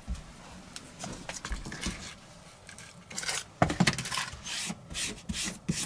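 Foil-faced Kilmat sound-deadening mat being handled and pressed down on a truck floor: light taps and small clinks at first, then from about three seconds in a run of short crinkling, rubbing bursts.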